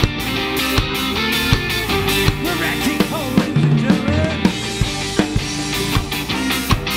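A live ska band playing: trumpet and saxophone horn lines over drum kit, electric guitar, organ and bass guitar.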